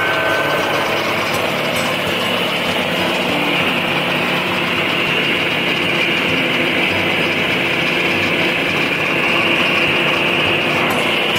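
Lucas Mill portable swing-blade sawmill running steadily, its engine driving the spinning circular blade.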